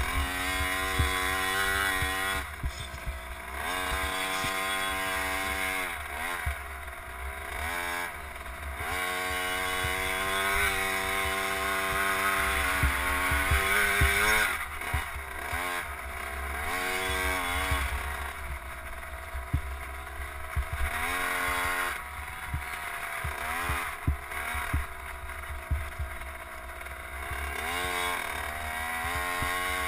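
KTM 50 SX minicross bike's small two-stroke single-cylinder engine, heard from on board, revving up and dropping back again and again as the rider works the throttle around the dirt track. A low wind rumble on the microphone and scattered knocks from the rough ground sit under it.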